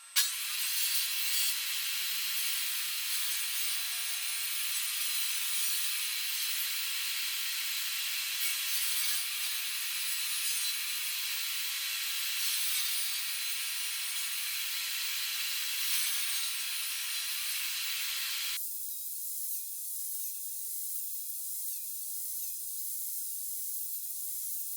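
A tool working wood, making a steady rasping hiss. The sound changes abruptly about three-quarters of the way through, losing its lower part.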